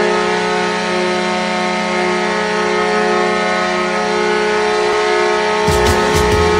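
Ice hockey arena goal horn sounding one long, steady blast. A thumping drum beat from the goal song comes in under it near the end.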